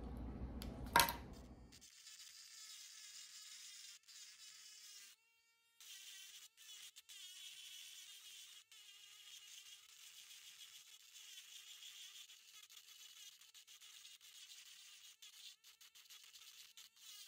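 Dremel rotary tool's high-pitched whine as its bit grinds into fossil shell rock, starting about two seconds in. It is faint and steady, with a few short breaks.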